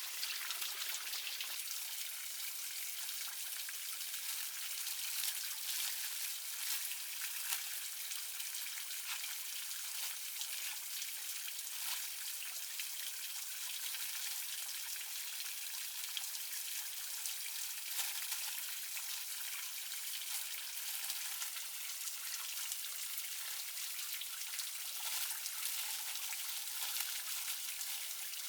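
Steady rain falling, a continuous patter of many small drops.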